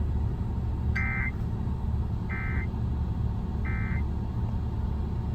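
Emergency Alert System end-of-message data signal: three short, identical bursts of buzzy two-tone digital data, about a second and a third apart, marking the close of a tornado warning broadcast. A steady low hum runs underneath.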